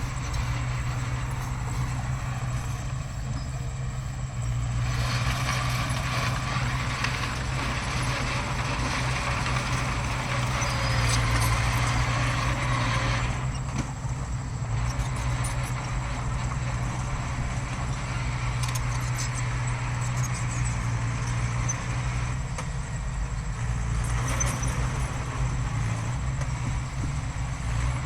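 Heavy diesel earthmoving machinery running with a steady low drone, louder and rougher for several seconds in the middle, with scattered metallic clanks in the second half.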